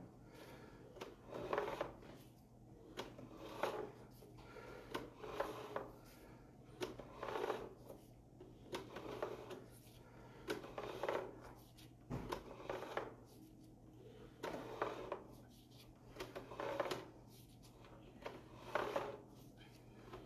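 Sewer inspection camera push cable being pulled back by hand in regular strokes. A short scraping rustle comes about every two seconds over a steady low hum.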